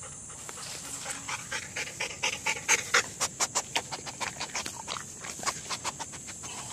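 A dog breathing hard close up, in quick short breaths several times a second, with its nose down at a dead catfish. A steady high hum of insects runs underneath.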